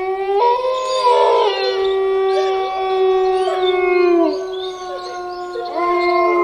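Werewolf howling sound effect: several long howls overlapping like a pack, starting suddenly, each holding its pitch and then sliding down at its end, with a fresh howl rising near the end.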